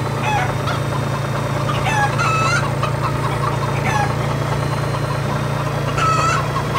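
Cartoon sound effects of chickens clucking, several short calls a second or two apart, over a steady low engine hum.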